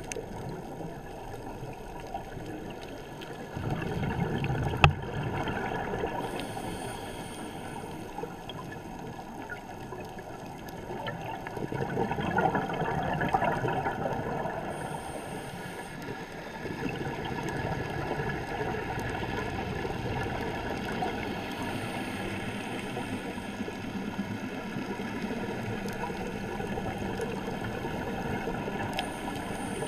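Underwater sound recorded through a camera's housing: a steady rush and gurgle of water, with louder bubbling swells about 4 seconds and 12 seconds in and a single sharp click about 5 seconds in.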